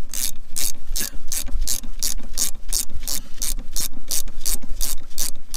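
Hand socket ratchet clicking steadily, about four clicks a second, as it is worked back and forth to back out a rear brake caliper slide bolt.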